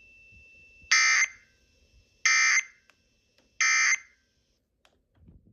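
Emergency Alert System end-of-message signal: three short, harsh, buzzing digital data bursts, evenly spaced about a second and a half apart, marking the end of the alert broadcast.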